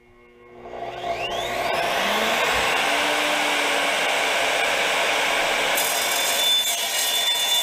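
An Evolution R255-SMS 10-inch sliding compound miter saw starts up, its motor whine rising over the first two seconds, then runs steadily. About six seconds in, the non-abrasive blade bites into 1/4-inch-thick mild steel angle and a harsh, high cutting screech joins the motor.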